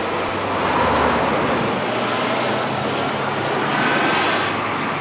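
Steady city traffic noise.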